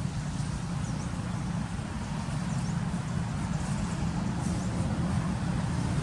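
Steady low outdoor rumble that grows slightly louder in the second half, with faint short high chirps about every two seconds.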